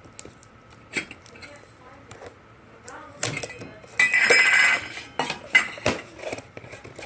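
Toy pots and pans clinking and clattering as they are handled and pulled apart, with scattered single clinks and a louder rattling clatter about four seconds in.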